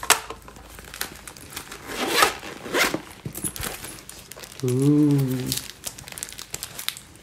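Rustling and scraping as a faux-leather makeup-brush belt pouch is unclipped and opened, with a brief hummed note about five seconds in.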